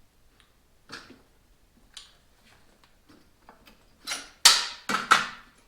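Metal parts clanking and scraping as a motorcycle front wheel is worked off: a couple of light clicks, then four loud, sharp metallic scrapes close together near the end.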